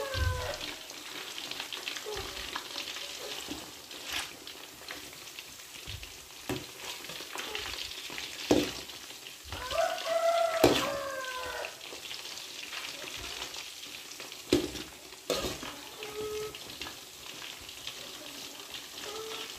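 Chicken kebab pieces deep-frying in hot oil in an aluminium kadai: a steady sizzle, with a perforated metal skimmer scraping and knocking against the pan every couple of seconds. A short wavering pitched sound cuts in about halfway through.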